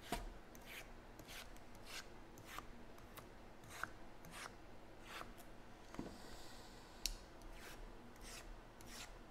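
Sealed cardboard trading-card boxes being shuffled and restacked by hand: an irregular string of short scrapes and light taps as the boxes slide against each other and the table.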